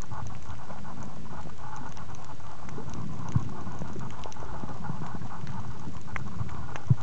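Underwater ambience recorded by a compact camera sealed in a soft waterproof pouch: a steady muffled rush with scattered small clicks and crackles, and two louder low knocks, about three and a half seconds in and just before the end.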